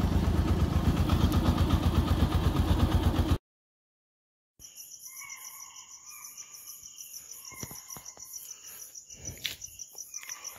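A motorcycle engine runs steadily, then cuts off abruptly about three seconds in. After a second of silence, crickets trill steadily. Short distant calls come every few seconds: alarm calls of spotted deer (chital), which here signal a tiger close by.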